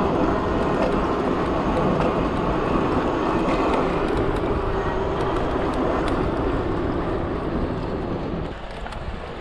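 A Dualtron Thunder electric scooter being ridden, heard as steady rushing wind and road noise with a faint, even whine from its hub motors. The noise eases a little near the end.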